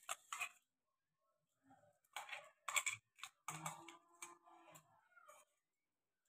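Faint clicks and scrapes of kitchen utensils being handled, a couple right at the start and a busier run from about two to five and a half seconds in.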